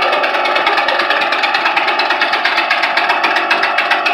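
Homemade steam/air engine running on compressed air at about 82 PSI after starting on its own, with a fast, even beat.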